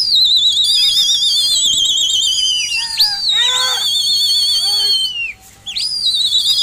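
Several loud, shrill warbling whistles, overlapping and held a second or more each, their pitch dropping away as each ends, with a brief gap near the end. These are pigeon fliers whistling to keep their flock circling overhead.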